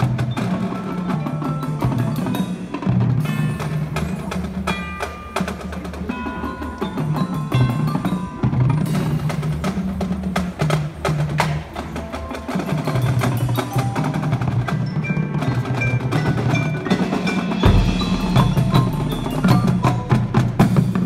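Marching band playing, with the front ensemble's mallet percussion ringing out in quick, bright notes over sustained low notes.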